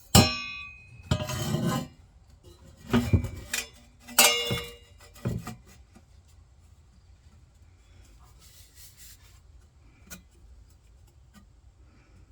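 Metal parts clanking against each other as they are handled and set down on a workbench. There is a sharp, ringing clank at the start, then several more knocks and scrapes over the next few seconds, one of them ringing again.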